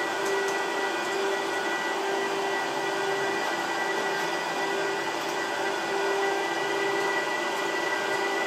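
Apple Xserve rack servers' cooling fans running with a loud, steady whir. A hum underneath wavers roughly once a second, and a faint high whine is held throughout.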